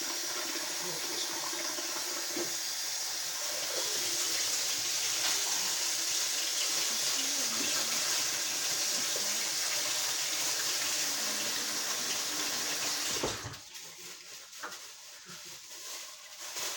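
Kitchen faucet running steadily, filling a plastic shopping bag with water, then shut off abruptly a few seconds before the end.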